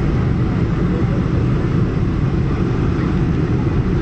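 Steady cabin noise of a Boeing 747-400 on approach with flaps extended: engine and airflow rumble heard from inside the cabin, deep and loud with no change.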